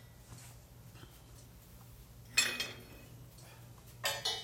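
Steel wrench and bolt clinking against a steel forge shell as the bolts holding it together are taken out: one sharp clank about halfway through, then two more close together near the end, over a low steady hum.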